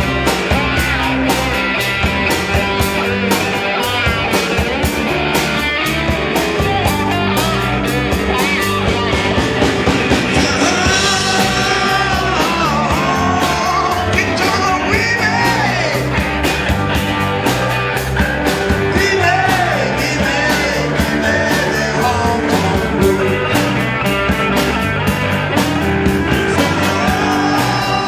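Live rock band playing: drums keep a steady beat under bass and electric guitar, and a lead line bends up and down in pitch through the middle.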